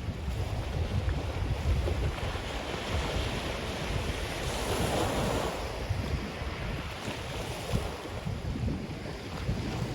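Ocean surf washing onto a black sand beach, with sea wind buffeting the microphone in a gusty low rumble. A wave surges up about four to five seconds in.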